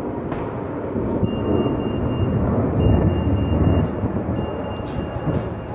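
Twin-engine widebody jetliner climbing out overhead just after takeoff: a loud, deep jet-engine rumble that swells to its loudest about three seconds in, then eases a little.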